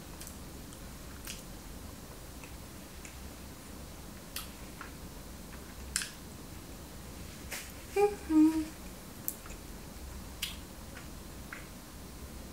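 Someone eating a chocolate-filled donut: scattered wet lip smacks and mouth clicks while chewing and licking chocolate off the fingers, with a short hummed "mmm" about eight seconds in, the loudest sound.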